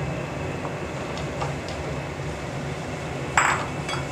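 Crumbled paneer being tipped from a bowl into a frying pan and stirred into the masala with a wooden spatula, over a steady low kitchen hum: a few faint taps, then a brief scrape about three and a half seconds in and a click just after.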